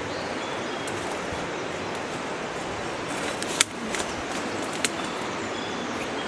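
Steady rush of a flowing stream, with footsteps through forest undergrowth and a few sharp snaps of twigs a little past halfway.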